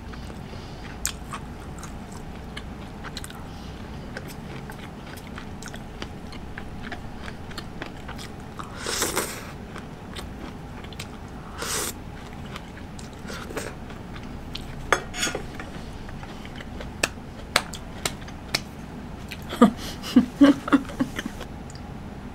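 Close-miked mouth sounds of a person eating hot pot: chewing with many small wet clicks, two slurps from a small bowl of broth and corn about nine and twelve seconds in, and a quick run of gulps from a glass of water near the end.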